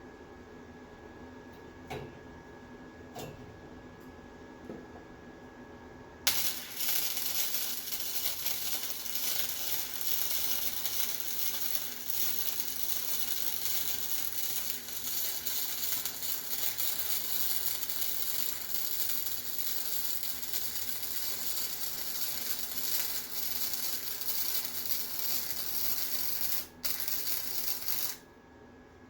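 Flux-core MIG welding arc from a Harbor Freight Titanium Flux 125 crackling steadily as a weld bead is run. It strikes about six seconds in, breaks off briefly shortly before the end, and stops near the end. A few faint clicks come before the arc starts.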